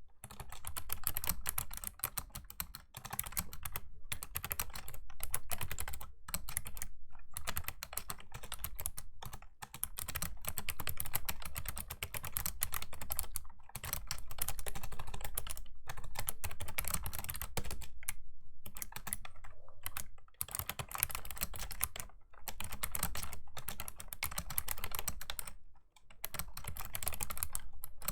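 Fast typing on a Razer Ornata Chroma V2 mecha-membrane keyboard: continuous runs of clicky keystrokes, broken by brief pauses every few seconds.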